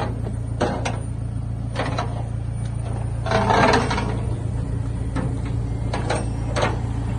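A vehicle engine idles with a steady low hum while a few clicks and clanks of metal tie-down gear sound on a tow truck's steel flatbed. The loudest is a longer rattle about three and a half seconds in.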